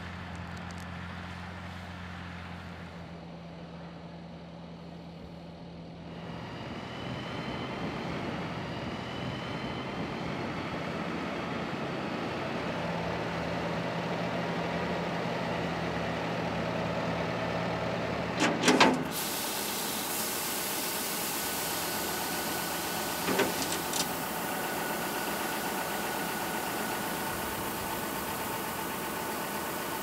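Tractor diesel engines running in the field: first the Massey Ferguson 6499 pulling a five-furrow plough, then machines running while a telehandler fills the seed drill's hopper. About two-thirds of the way through, a steady hiss of seed pouring into the hopper joins in, with two short knocks.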